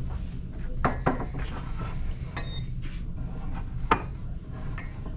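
Dishware clinking and knocking as it is handled, a string of separate sharp clinks with the sharpest about four seconds in, over a steady low rumble.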